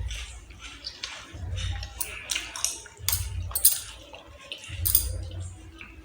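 Eating sounds: chewing close to the microphone, with scattered clinks and clicks of dishes and cutlery.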